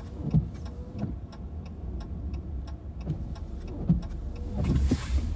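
Car turn-signal indicator clicking steadily, about three clicks a second, over the low rumble of the car's engine and tyres heard inside the cabin, with two brief low thumps.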